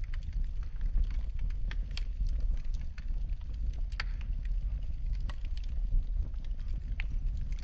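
Wood fire in a fireplace crackling, with irregular sharp pops and snaps over a steady low rumble of burning; one louder pop about four seconds in.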